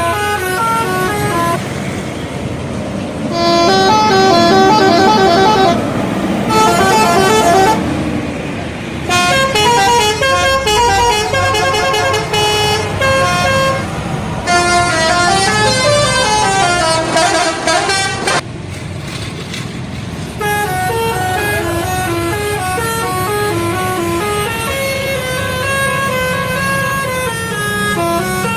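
Indonesian bus 'telolet' musical horn playing one tune after another: quick runs of stepped, held notes, several pitches sounding together, over a low engine and road rumble.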